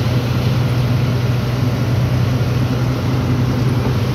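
Loaded lorry's diesel engine running steadily while driving along, heard from inside the cab as an even low hum with road and wind noise.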